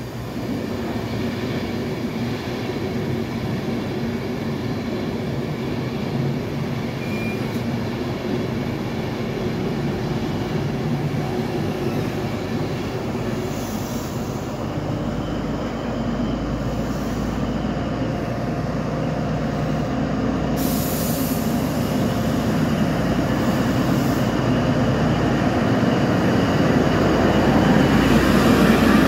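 Midland Pullman HST train pulling out: coaches rolling past with a steady rumble of wheels on rail, growing louder and deeper over the last several seconds as the Class 43 diesel power car draws level.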